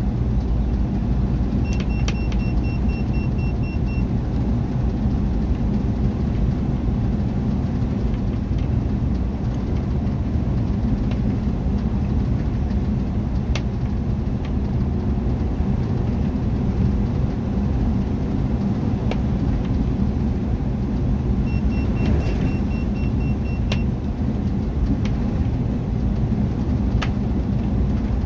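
Converted bus motorhome driving at a steady road speed, its engine and tyre noise heard as a continuous low rumble inside the cab. Two short spells of rapid high beeping come near the start and again about three-quarters through.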